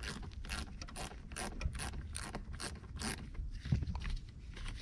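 Hand ratchet clicking in repeated short strokes, about two to three a second, as it turns the small 8 mm nut off a battery cable terminal; the clicking stops about three seconds in.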